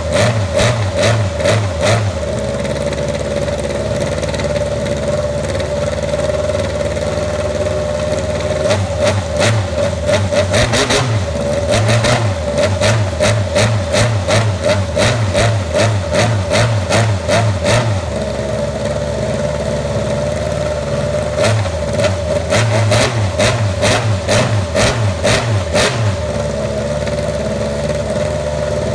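800cc Ducati Desmosedici MotoGP race bike's V4 engine running on its stand at an uneven, pulsing idle. The low beat swells a few times, about ten seconds in and again after twenty seconds.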